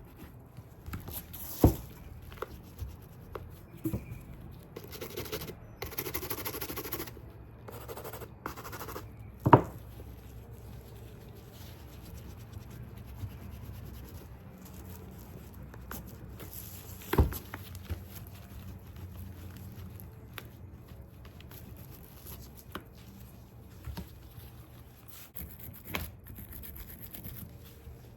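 Short bouts of brushing and rubbing on a leather handbag and its metal hardware, broken by scattered taps and knocks as the bag and tools are handled; three of the knocks stand out louder.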